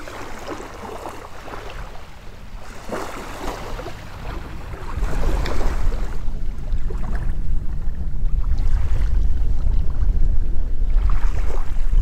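Small waves lapping at the shoreline under a light wind, then about five seconds in the wind picks up and buffets the microphone with a loud, steady rumble as a thunderstorm blows in.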